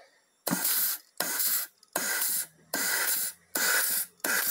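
Compressed-air nozzle blowing in short hissing blasts, about six of them, into the E (overdrive) clutch feed passage of a 6R80 automatic transmission case during an air pressure check. The air escaping is taken as a sign that the clutch is probably not sealing 100% on its sealing rings.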